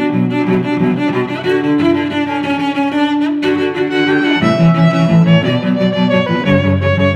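Background music played on bowed strings, violin and cello, with notes changing every half second or so.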